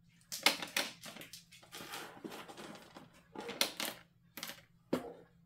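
Small plastic diamond-painting tools (drill pens, wax pots, drill tray) clicking, clattering and rustling in a few irregular bursts as they are gathered up and packed away.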